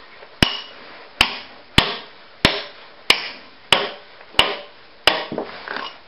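Sledgehammer striking a steel chisel set in a concrete floor: eight sharp, ringing blows at an even pace, about one every two-thirds of a second, chipping out the concrete between jackhammer holes. Lighter clatter follows near the end.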